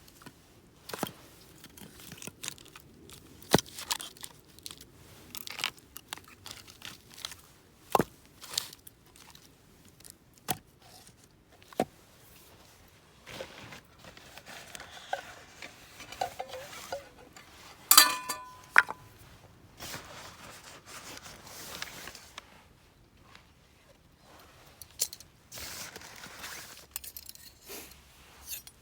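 Helko axe splitting hard zelkova firewood: a dozen or so irregular sharp knocks of the blade striking and wood cracking apart, with stretches of rough noise between. One blow a little past the middle rings briefly with a metallic tone.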